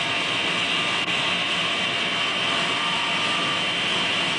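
Motor-generator set, a 3/4-horsepower electric induction motor driving a 2900-watt generator, running steadily on mains AC power. It makes a loud, steady high-pitched whine over a rough mechanical rumble.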